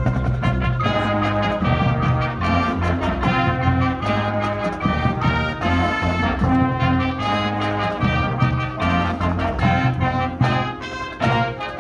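High school marching band playing its show, the brass section carrying full sustained chords over low brass, with the notes changing every second or so.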